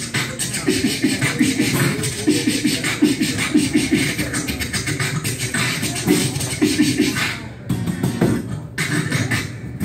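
A man beatboxing into a vocal microphone: a fast run of mouth-made percussion with short, low pitched pulses, broken by two brief pauses near the end.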